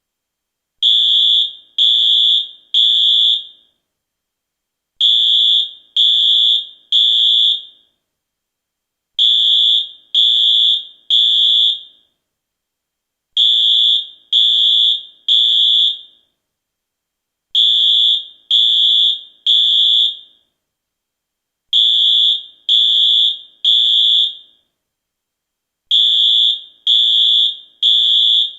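US fire alarm sounding the temporal-three evacuation pattern: three loud, high-pitched beeps in quick succession, then a pause, with the group repeating about every four seconds. This is the standard signal to evacuate the building.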